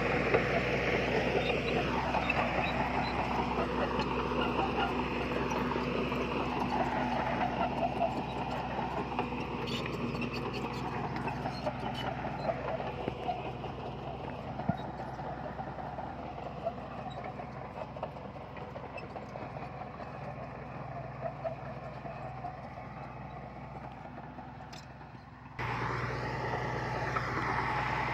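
Diesel engine of heavy earthmoving equipment running steadily, with occasional clanks and rattles. It grows gradually fainter, then jumps back to full loudness with a sudden cut near the end.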